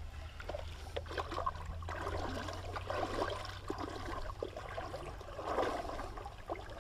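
Shallow river water splashing and sloshing in irregular bursts, with small knocks among them.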